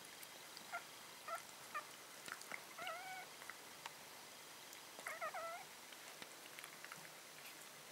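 Italian Greyhound puppies about a week and a half old squeaking and whining: a few short high squeaks, then thin wavering whines about three seconds in and again around five seconds in.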